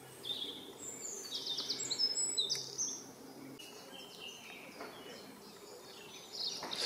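Wild songbird singing in woodland: a run of high chirps with a quick trill in the first few seconds, then fainter scattered calls.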